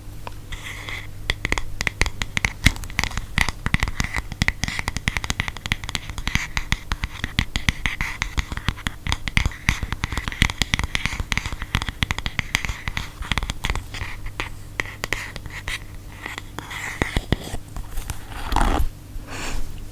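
Rapid close-miked scratching on an object, an unbroken run of quick strokes, with a louder knock near the end.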